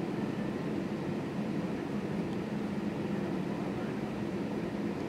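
Steady cabin noise of an Airbus A320-family airliner taxiing, its jet engines at idle, heard from inside the cabin as an even hum with a constant low drone.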